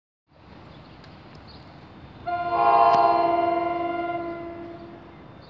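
Horn of an ALP-46A electric locomotive sounding one long blast about two seconds in, several notes together in a chord, fading out over its last second. A steady low rumble runs underneath.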